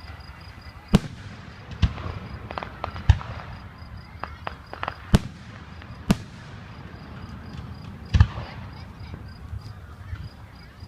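Fireworks shells bursting: six loud, sharp bangs at uneven intervals, about one to two seconds apart, with several smaller cracks in between.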